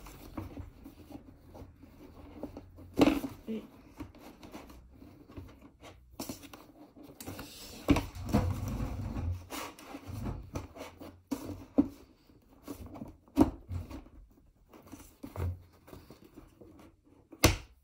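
Fabric and a non-woven embroidery stabilizer being handled and fitted into a plastic embroidery hoop: irregular rustling and scraping, with a few sharp knocks of the hoop frame.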